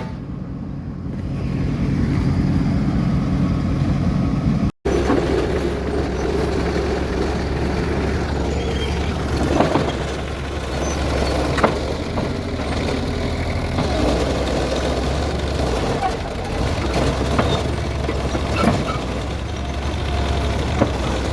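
A vehicle engine running steadily with a low hum, with scattered light knocks and clicks; the sound breaks off abruptly about five seconds in and resumes.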